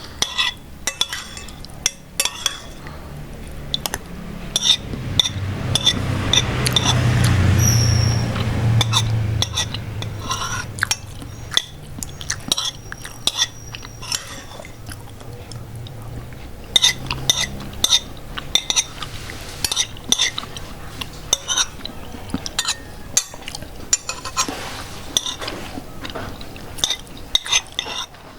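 Metal spoon clinking and scraping on a ceramic plate while eating, dozens of short ringing clinks at uneven intervals. About a quarter of the way in, a longer, louder swell of noise builds and fades over several seconds.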